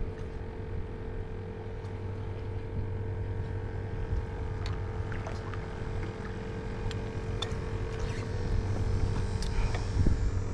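Steady mechanical hum aboard a small fishing boat, holding one even pitch over a low rumble of wind on the microphone. Scattered light clicks and taps come in from about halfway through.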